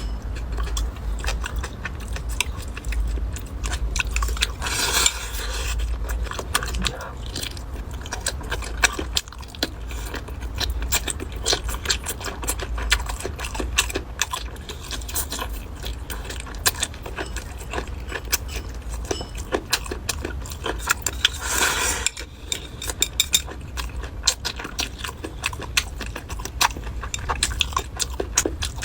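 Close-miked eating: chewing with many small clicks and taps, and a brief hissing rush twice.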